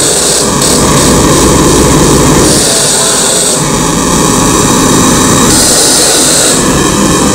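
Loud, dense electronic noise from a live experimental sound performance: a harsh, continuous roar with a high hiss that cuts in and out twice, in blocks of about a second each.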